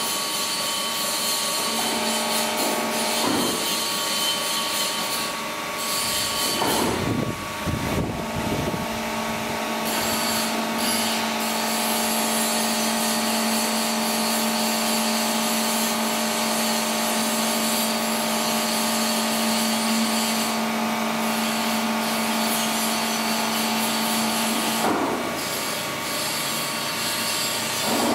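Plate rolling machine running, rolling a 10 mm steel plate into a curve with a steady hum from its drive. Creaking, gliding squeals from the plate working between the rollers break in around seven to nine seconds in and again near the end.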